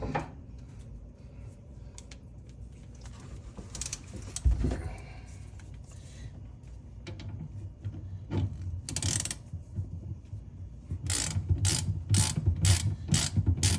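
Ratchet wrench clicking as it turns a socket to tighten a 3/4-inch threaded pipe plug. There are scattered clicks and a knock at first, then in the last few seconds a steady run of ratchet clicks, about two or three a second.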